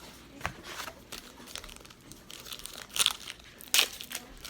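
Wrapper of a trading card pack crinkling and tearing as it is handled and ripped open, in irregular rustling bursts that are loudest around three and four seconds in.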